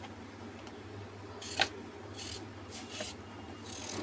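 A kitchen knife cutting raw peeled potato into thin slices: a few short scraping strokes, with a sharp click about one and a half seconds in.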